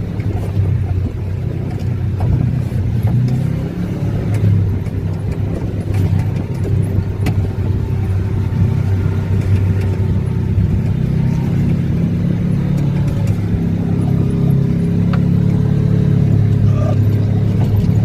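Off-road vehicle's engine running steadily while driving along a dirt trail, with a few sharp ticks and rattles; the engine grows gradually louder near the end.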